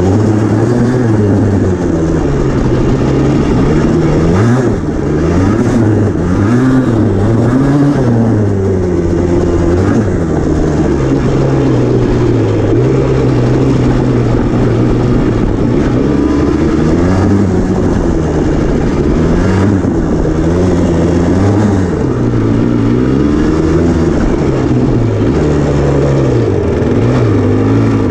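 Yamaha Blaster ATV's two-stroke single-cylinder engine revving up and down over and over as it is ridden along a bumpy dirt trail, the pitch climbing and dropping every second or two.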